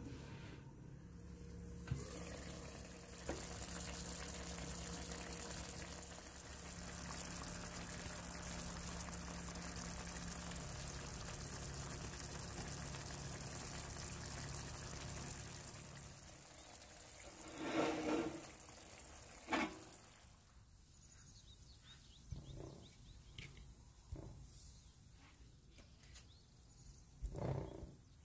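Steady rush of running water that stops about sixteen seconds in, followed by a few short knocks.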